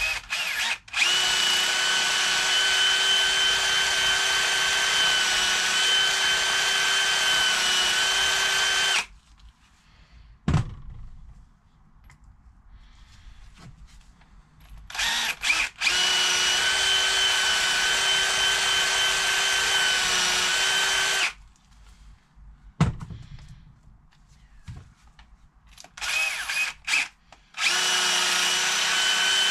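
Cordless drill running at a steady speed in long runs of several seconds, stopping twice, with short on-off blips near the end, cleaning carbon off diesel injector parts. A couple of short knocks come in the pauses.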